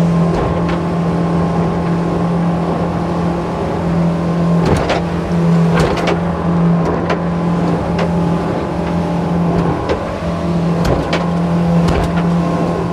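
A boat engine running steadily under way, a constant low drone with a few sharp knocks scattered through it.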